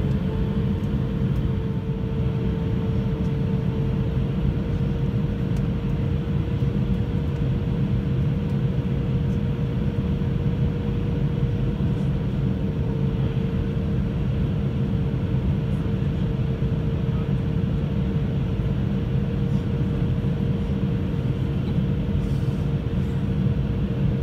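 Airbus A320 cabin noise heard from a seat over the wing: steady engine drone and airflow rumble, with a steady engine whine that rises a little in pitch at the start and then holds.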